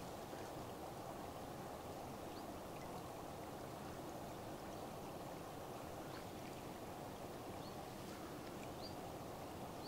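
Steady, dull rush of fast-flowing river water.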